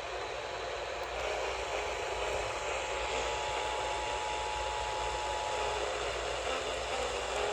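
Steady radio static hiss over a faint low hum, with a faint steady whistle that comes in about a second in and stops about five seconds later.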